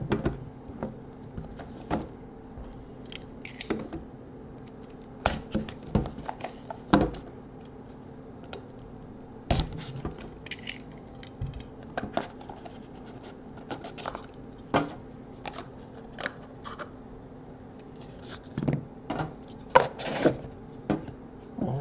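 Hands opening a sealed trading card pack box: scattered clicks, taps and scrapes as a cutter works the packaging and the cards are slid out, with several louder knocks along the way.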